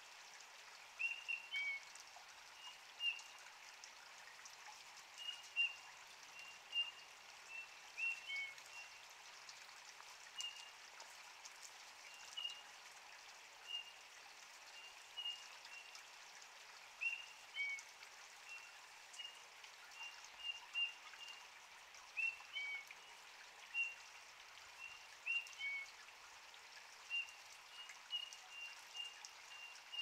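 Eurasian bullfinches singing: short, soft whistled notes every second or so, some in quick clusters and a few sliding downward, over a steady background hiss.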